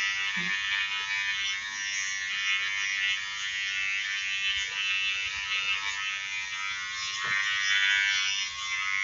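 Wahl GroomsMan Pro cordless trimmer running with a steady high-pitched buzz as it cuts body hair.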